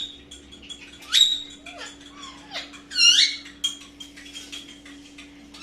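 Baby Indian ringneck parakeet giving squeaky feeding calls: two loud high cries, about a second in and about three seconds in, with fainter squeaks and soft clicks between them.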